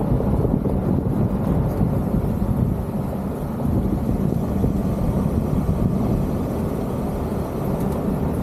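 Steady rumble of a vehicle driving on a gravel road, with wind rushing over a roof-mounted camera's microphone.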